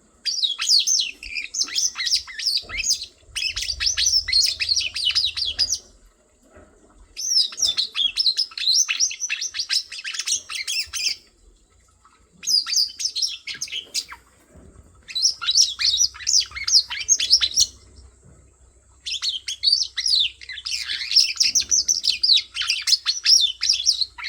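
Birds chirping: runs of quick high-pitched twittering notes, each run a few seconds long, broken by pauses of about a second.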